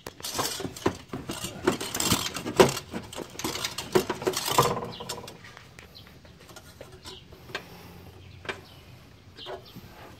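Hands working an aluminium intake pipe and rubber coupler into a hole in a car's inner fender: rustling, scraping and clicking for about five seconds, then quieter with a few scattered clicks.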